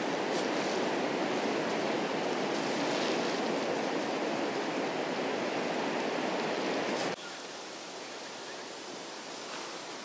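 Steady rushing noise that drops abruptly to a quieter hiss about seven seconds in.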